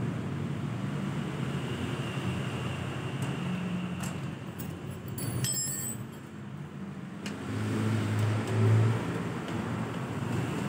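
A motor vehicle engine running with a steady low hum, which swells louder for about a second and a half near the end; a few light metallic clicks near the middle.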